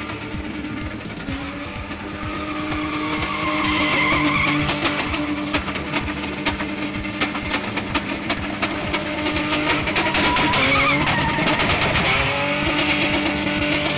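Pickup truck engine held at high revs while its spinning rear tyres squeal and skid through a drift, with a short dip and recovery of the revs late on. Music plays underneath.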